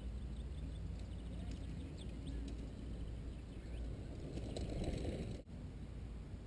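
Mountain bike passing close on a dirt trail: tyre noise swells with rapid ticking of the freewheel as the rider coasts, then cuts off sharply about five seconds in. Faint bird chirps earlier over a steady low rumble.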